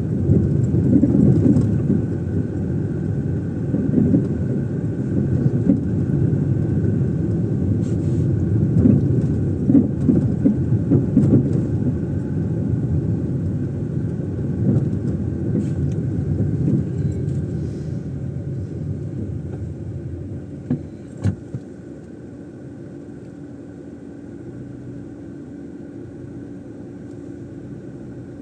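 A car being driven, its engine and road rumble running strongly and unevenly. About twenty seconds in there are two short knocks, then the rumble quietens to a steadier low hum.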